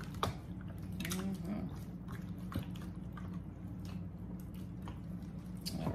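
Hands rubbing and squishing seasoning and vinegar into raw pork neck bones: soft wet squelches and small clicks over a steady low hum.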